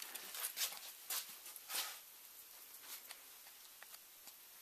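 Light clicks and knocks as the hinged metal door panel of a card dispenser is swung shut by hand, about five sharp ones in the first two seconds, then a few faint ticks.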